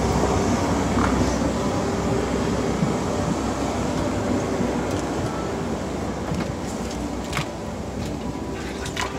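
Boeing 777-300ER cabin during boarding: a steady rushing hum of the cabin air system, with a few sharp clicks and knocks near the end.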